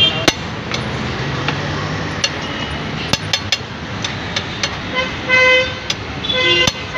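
A metal spatula clanking and scraping on a large flat tawa as pav bhaji is mashed, giving scattered sharp clinks. A vehicle horn sounds twice near the end, over steady street traffic noise.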